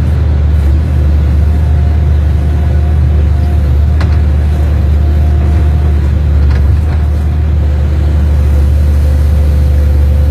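Excavator's diesel engine running steadily with a loud low rumble while the machine digs. A faint whine comes and goes over it, and there are two short clanks partway through.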